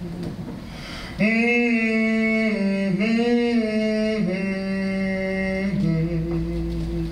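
A man singing wordlessly, humming a slow blues line in long held notes that shift in pitch every second or so, louder from about a second in.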